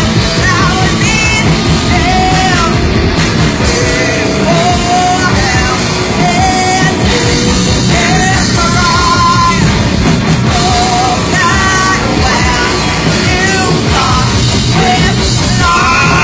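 Loud live heavy metal band playing: distorted guitars, bass and drums, with vocals over them.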